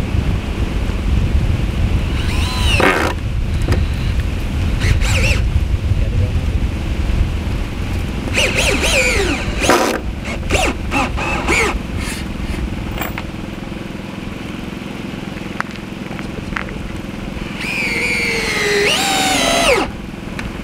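Power drill driving screws straight into wood with no pilot holes, over a steady low rumble. Its motor whines up and winds down in three runs, about 3, 9 and 18 seconds in.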